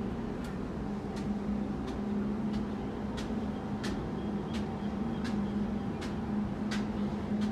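Footsteps climbing steel stairs, a sharp step about every two-thirds of a second, over a steady low hum.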